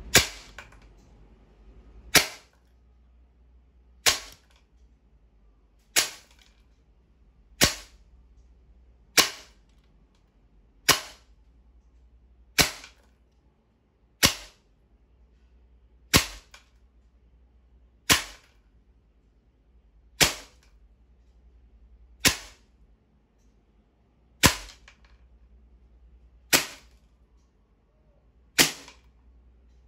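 Sig Sauer MCX .177 CO2 air rifle firing pellets into a wood-grain board, about sixteen sharp shots at a steady pace of roughly one every two seconds.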